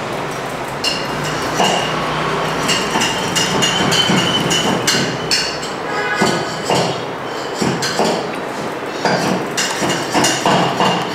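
Small metal hand tools clicking, tapping and clinking against the front brake master cylinder as its retaining circlip is worked into place, in an irregular run of sharp clicks with short metallic rings.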